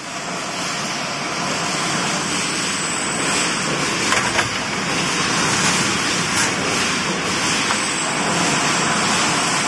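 Everen EE-CSA-500 continuous spring assembly machine running, making mattress innersprings: a steady, dense mechanical noise with a few sharper clicks around the middle.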